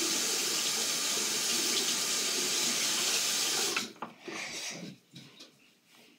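Water tap running into a sink, turned off a little under four seconds in, followed by a few light knocks and clicks.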